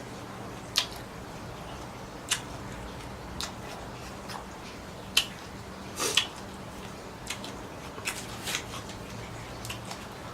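Someone eating shrimp and squid: irregular sharp crunches and cracks, about a dozen of them with the loudest clustered near the middle, over a low steady hum.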